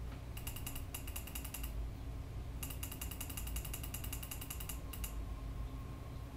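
Computer mouse ticking rapidly in two runs, a short one and then a longer one, as the zoom is worked, over a low steady hum.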